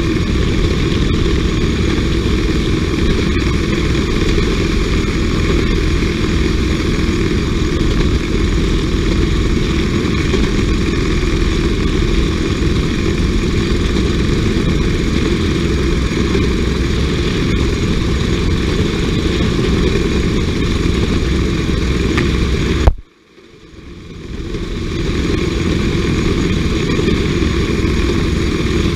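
Motor jigger's small engine running steadily as it travels along the rails. About 23 seconds in the sound cuts out abruptly for about a second and then fades back in.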